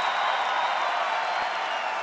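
Crowd noise: a large crowd clapping and cheering in a steady, dense wash of sound.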